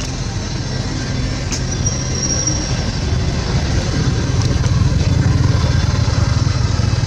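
An engine running steadily with a low rumble, growing a little louder after the middle.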